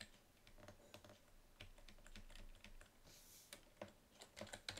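Faint computer keyboard typing: scattered key clicks that come thicker near the end, with a brief soft hiss about three seconds in.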